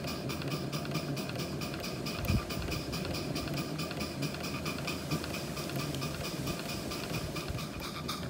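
Maxitrak 1-inch-scale Burrell live-steam traction engine running, its single cylinder giving quick, even exhaust beats, about five a second, over a steady steam hiss and the clatter of the valve gear. There is one low thump about two seconds in.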